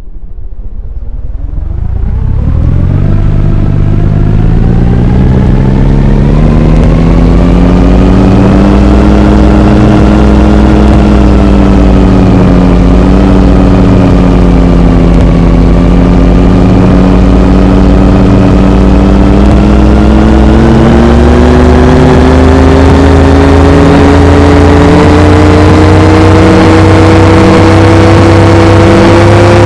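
Over-speed ceiling fan spinning up and running very loud, with a motor hum and whine that rises in pitch over the first several seconds. The pitch sags a little midway, then climbs again toward the end.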